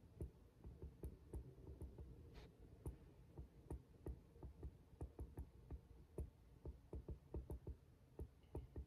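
Faint, irregular tapping and clicking of a stylus on a tablet's glass screen while writing, several taps a second.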